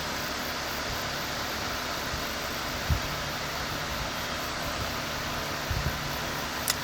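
Steady, even rushing noise with no clear pitch, with a couple of soft low thumps about three seconds in and again near six seconds.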